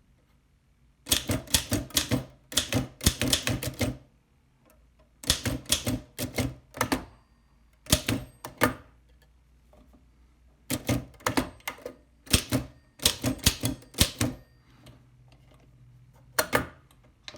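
1902 Oliver No. 3 typewriter being typed on: quick runs of sharp key and typebar strikes in groups of one to three seconds, with short pauses between them.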